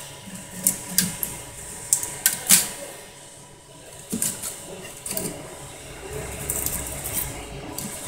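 Dual-extruder 3D printer's mechanism clicking and whirring over a steady low hum, with irregular clicks and knocks; the loudest comes about two and a half seconds in.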